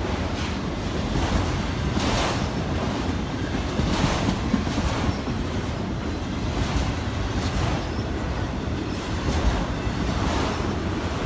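Freight train of autorack cars rolling past close by: a steady low rumble of steel wheels on the rails, with wheel clicks over rail joints about once a second.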